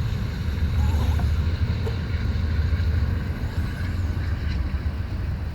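A passing train rumbling low and steady, with faint scattered higher sounds over it.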